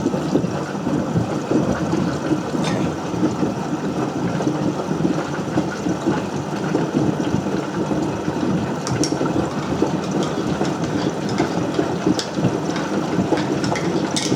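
Potato washing machine running: a steady mechanical rumble with continuous clatter and a few sharp clicks.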